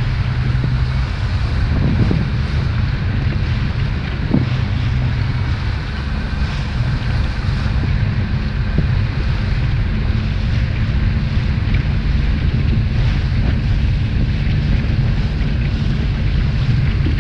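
Rigid inflatable boat's engine running steadily underway, a low even hum, with wind buffeting the microphone and the rush of choppy water.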